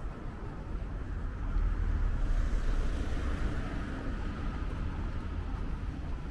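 Road traffic rumble with a vehicle going past, swelling about two seconds in and easing off again.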